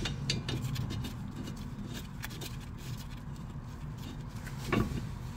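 Gloved hands starting a bolt into a front brake caliper, with light metallic clicks and scraping in the first second or so. A short vocal sound comes near the end.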